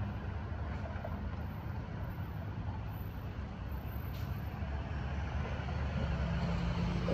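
City street traffic: a steady low rumble of vehicle engines, growing a little louder near the end.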